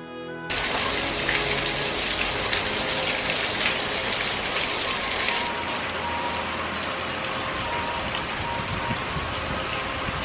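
A steady, rain-like rushing hiss that starts abruptly about half a second in, with faint music tones beneath it.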